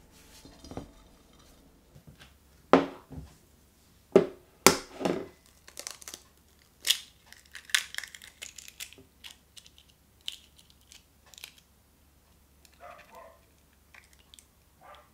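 An egg being cracked and its shell broken apart over a small dish to separate the yolk. A few sharp knocks come in the first seconds, then a crunching, crackling run of shell sounds.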